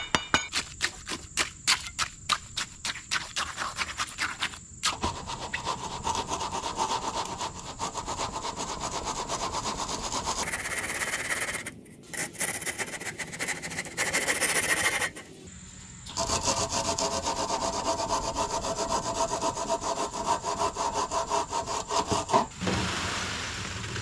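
A wooden screed board sawed back and forth across freshly poured concrete and the tops of the wooden forms, a steady rhythmic rasping scrape that stops briefly twice. It is preceded by a run of quick sharp taps in the first few seconds.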